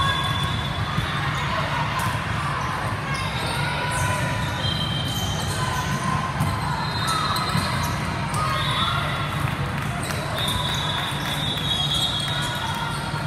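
Echoing gymnasium din of volleyball play: balls being hit, short sneaker squeaks on the court floor, and the chatter of players and spectators.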